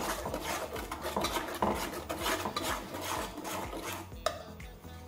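Metal spatula stirring and scraping a thick spiced onion masala around a kadhai, in a run of quick scraping strokes against the pan. The strokes die away about four seconds in, with one sharp tap.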